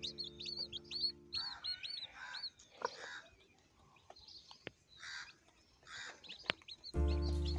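Chicks peeping, a rapid run of high, short chirps, over background music that fades out after a second or two. Softer scattered calls and a few sharp clicks follow, and the music comes back near the end.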